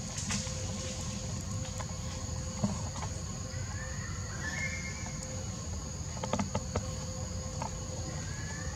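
Steady, high-pitched drone of forest insects, over a low background rumble, with a short rising call about halfway through and a few sharp clicks about six seconds in.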